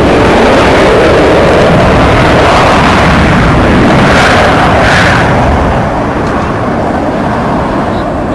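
Loud jet noise from the Avro Vulcan's four Rolls-Royce Olympus turbojets as the bomber flies past low, dropping off a little about two-thirds of the way through.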